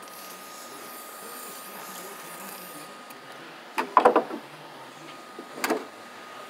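Hand work on a truck's spin-on air dryer cartridge: a quick cluster of clattering knocks about four seconds in, then a shorter pair of knocks, as the cartridge and tools are handled.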